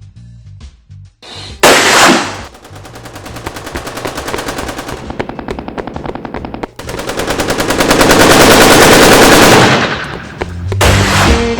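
Rapid automatic gunfire in long bursts, as in a war-film battle sound effect. It starts suddenly with a loud crack about two seconds in and grows denser and louder in a second long burst. Low music notes come in near the end.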